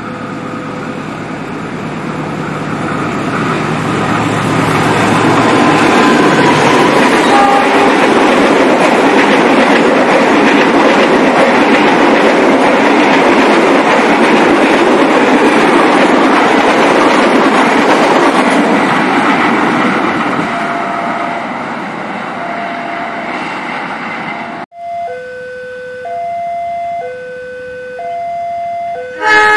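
A diesel-locomotive-hauled passenger train passing close by: engine hum and then the loud rush of the carriages' wheels on the track, building to a peak and fading over about twenty seconds. After a sudden cut, a level-crossing warning alarm sounds, two tones taking turns about once a second, with a short loud burst at the very end.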